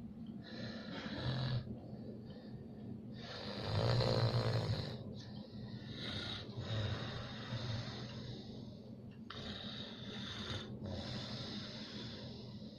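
A pet snoring in its sleep from exhaustion, a run of long snoring breaths with short pauses between them, the loudest about four seconds in.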